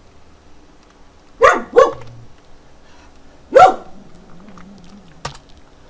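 A dog barking three times: two quick barks about a second and a half in, then a single bark a couple of seconds later. Faint computer keyboard clicks sit underneath.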